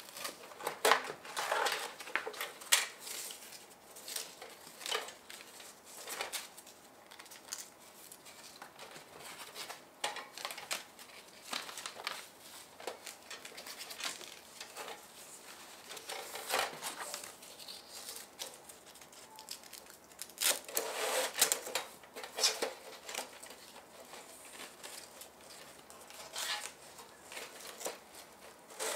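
Handling noise from the parts and packaging of a folding titanium camp stove: irregular rustling and light clicks and knocks. Several louder clusters stand out, a few seconds in, past the middle and twice more later on.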